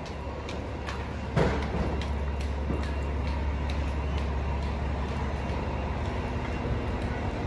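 City street noise with a steady low rumble of vehicle engines and traffic, easing off about six seconds in, and a sharp knock about one and a half seconds in.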